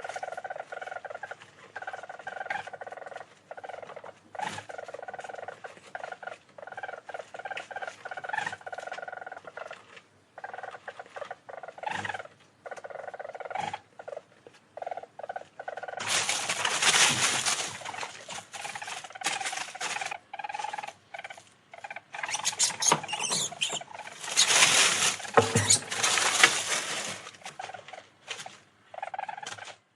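Weasel-family animal calling: a rapid, chopped trill on a steady pitch through the first half, then from about halfway loud, harsh, noisy bursts of screeching.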